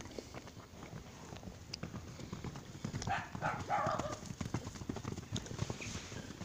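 Cows moving about at close range: irregular soft hoof steps and knocks on the ground, with a louder stretch of rustling noise about three seconds in.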